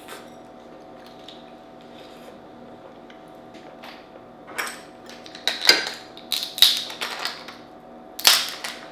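Dungeness crab shell cracking in a metal crab cracker: a quiet start, then from about halfway a run of sharp cracks and crunches, the loudest near the end.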